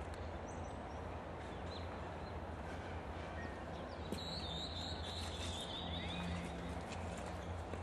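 Open-air ambience in an empty stadium: a steady low rumble, with faint high chirps and a few light clicks.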